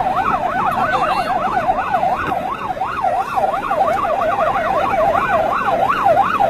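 Vietnamese police car sirens in a fast yelp, each rising and falling about three times a second, with two sweeps overlapping out of step. Road and engine noise runs beneath them.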